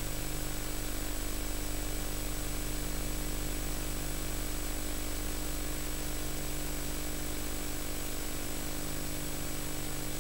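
Steady hiss and electrical hum with a faint high whine, the noise floor of a VHS tape's audio track that carries no program sound.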